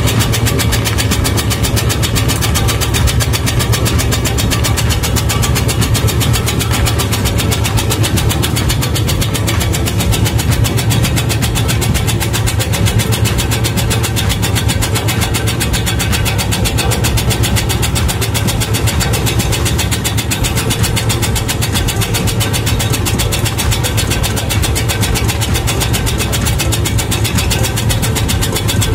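Homemade tobacco-shredding machine running, its steel blade disc, driven by a half-horsepower electric motor, chopping tobacco leaves into fine shreds. It makes a loud, steady, fast chatter over the motor's drone.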